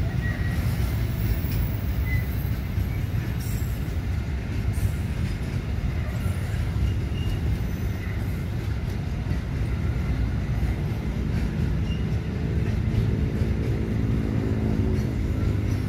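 Freight train of empty flat wagons rolling past, a steady low rumble of wheels on the rails.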